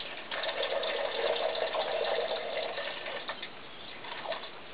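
Pineapple juice pouring from a carton into a blender jar over ice: a steady stream of liquid that stops about three seconds in.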